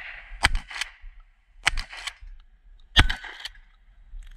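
Three shotgun shots about a second and a quarter apart, fired on the move during a timed stage. The third shot is the loudest.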